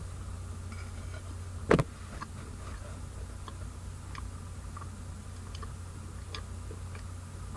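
A person chewing a bite of frozen pizza: faint scattered clicks over a steady low hum, with one sharper click a little under two seconds in.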